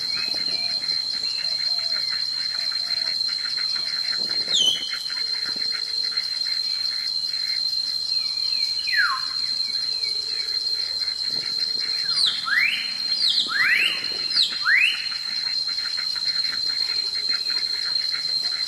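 A steady, high-pitched insect drone with a fast pulse, with a bird giving sweeping, falling whistled calls: one about a quarter of the way in, another near the middle, and a quick run of four about two-thirds through.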